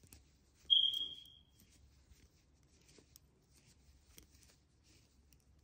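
Faint rubbing and light ticking of a crochet hook working wool yarn through stitches. About a second in, one sharp high-pitched ping cuts in and rings for about a second as it fades; it is the loudest sound.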